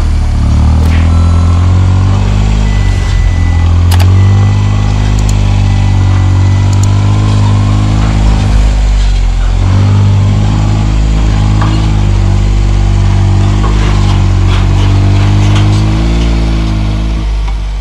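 Off-road 4x4 buggy's engine running at low speed while it tows a boat trailer, its pitch rising and falling a little, with a few light knocks.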